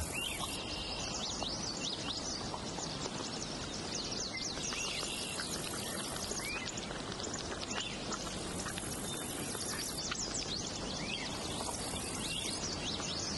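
Outdoor wildlife ambience: many short, high chirps and squeaks scattered throughout over a steady background hiss. A higher hiss or buzz switches on and off several times.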